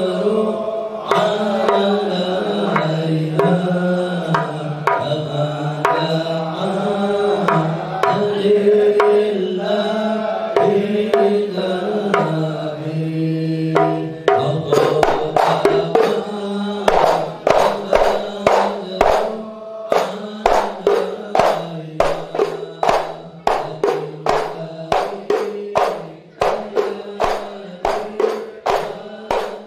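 A male voice sings sholawat into a microphone, with other voices chanting along and hand percussion behind. About halfway through, sharp, evenly spaced percussive strikes at roughly two a second come in.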